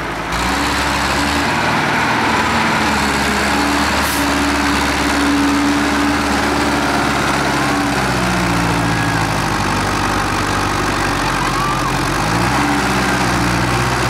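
Tractor diesel engine running under load in deep mud, its pitch rising and falling with the revs, with a rise in revs near the end.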